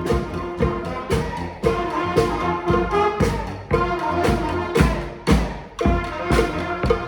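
Street brass band playing: horns holding notes over a steady drum beat of about two hits a second.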